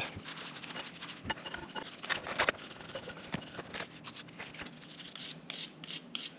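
Greasy steel Acme lead screws being scrubbed with degreaser: quick, irregular scratchy strokes and small clicks, with a steady low hum underneath.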